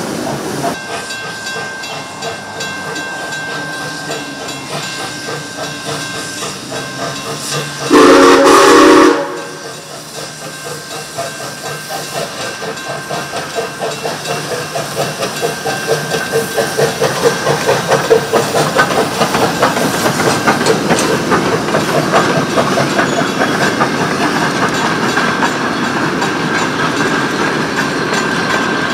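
Rx class steam locomotives: a short, loud steam whistle blast of about a second, then rhythmic exhaust chuffing and steam hiss that grows louder as the train approaches.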